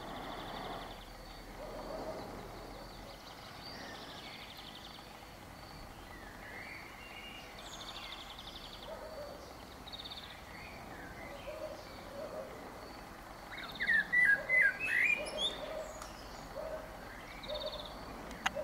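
Male Eurasian blackbird singing in short phrases, its loudest a burst of quick up-and-down notes about three-quarters of the way in. Other birds call and trill in the background.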